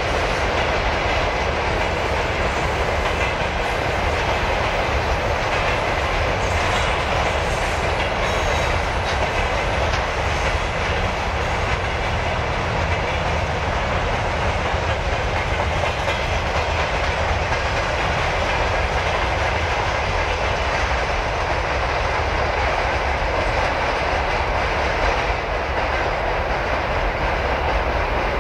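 Freight train rolling past steadily, its wagon wheels running on the rails.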